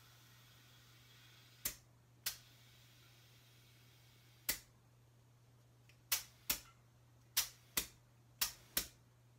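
Air-compressor tire inflator on a bicycle's front tire valve, giving about nine short, sharp clicks or air pops, spaced out at first and then in quick pairs near the end, as the tire is brought up to 45 psi.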